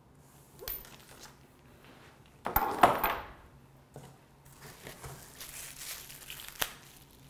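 Grill parts and packing being handled in a foam-packed cardboard box: a loud rustle with a knock about two and a half seconds in, then softer rustling and a sharp click near the end.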